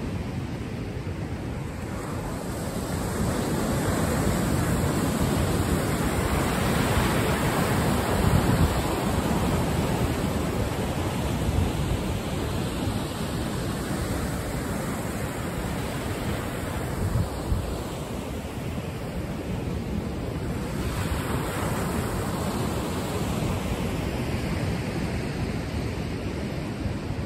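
Ocean surf washing in under a pier, swelling louder twice as waves break, with wind rumbling on the microphone.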